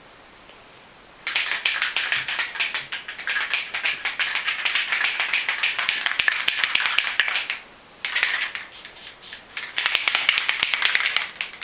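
Aerosol can of Plasti Dip being shaken hard, its mixing ball rattling in quick clicks: one long bout of about six seconds, then two shorter ones.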